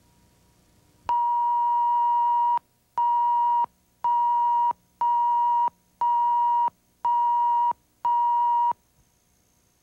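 Electronic test-tone beeps of the kind found between spots on a commercial tape: one long steady beep of about a second and a half, then six short beeps about once a second, each switching on and off sharply.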